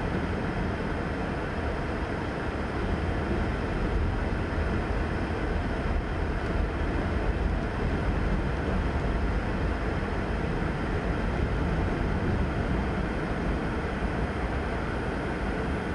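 Covered hopper cars of a freight train rolling past, a steady low rumble of steel wheels on rail, heard from inside a car.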